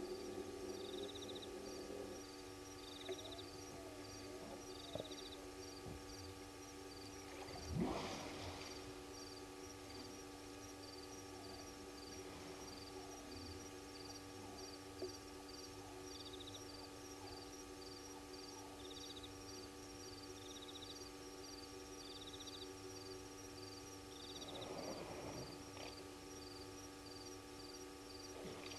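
Faint night-time bush ambience: insects chirping in short, regularly repeating trains over a steady electrical hum. A louder, brief rush of noise comes about eight seconds in and a softer one near the end, likely the elephant moving through the vegetation close to the microphone.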